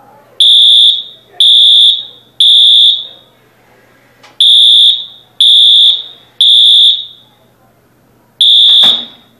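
School fire alarm beeping for an evacuation: loud, high-pitched electronic beeps in the temporal-three pattern, three beeps a second apart, a pause, three more, then the cycle starting again near the end. A single sharp knock sounds just after the last beep begins.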